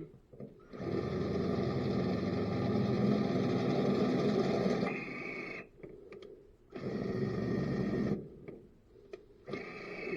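Electric drill running under load as it bores a hole, in one long run of about four and a half seconds, a shorter run of about a second and a half, and a third starting near the end.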